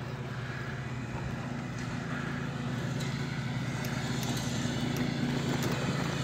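Lawn mower engine running at a steady pitch, growing slowly louder, with a few light clacks as the bicycle rolls over the wooden planks of a railroad crossing.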